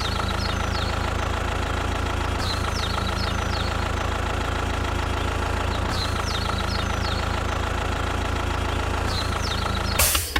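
An engine idling steadily, with small clusters of short, high, falling chirps every few seconds.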